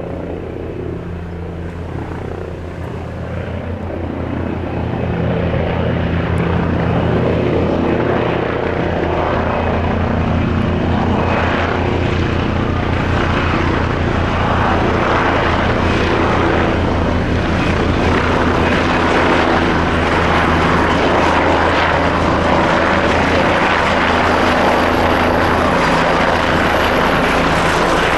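Leonardo AW169 twin-turbine helicopter running, its rotor beating in a steady low rhythm over the engine noise. It grows louder over the first few seconds, then holds steady, with a thin high whine from about halfway.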